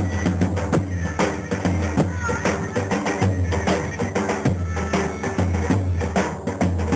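Dance music with a fast, steady drum beat over a sustained bass line and held melody notes, accompanying handkerchief dancing.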